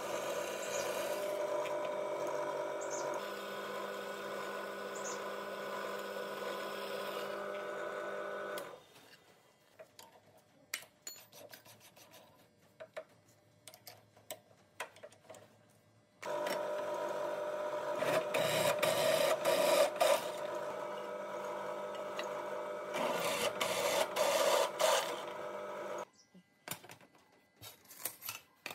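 A machine motor running with a steady hum that cuts off suddenly about nine seconds in. Light clicks and taps follow, then the motor runs again from about sixteen seconds to about twenty-six seconds, with a few more clicks near the end.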